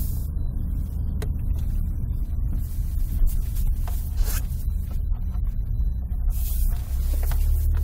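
Steady low rumble of a small car's engine and tyres heard from inside the cabin while driving slowly, a little louder near the end, with a few light clicks and brief puffs of hiss.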